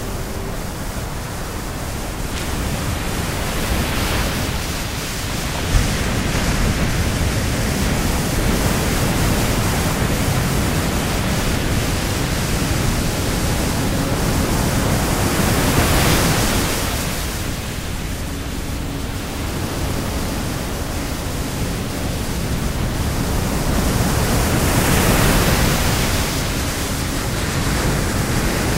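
Steady, loud rushing noise without any tone, swelling and easing three times.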